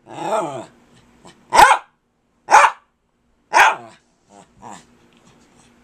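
Small long-haired dog vocalising insistently: a drawn-out whining call, then three sharp barks about a second apart, then a couple of fainter short yips.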